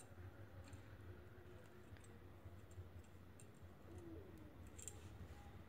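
Near silence: room tone with a faint low hum and a few faint, scattered ticks.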